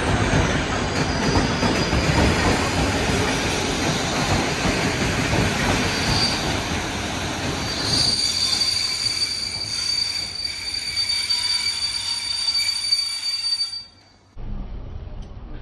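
Rail vehicle running on the track with a heavy rumble and clatter. About eight seconds in, a steady high-pitched wheel squeal comes in over it and holds for several seconds. The sound then cuts off abruptly near the end.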